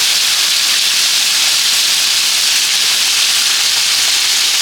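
Waterfall: water pouring and splashing in a steady, even hiss.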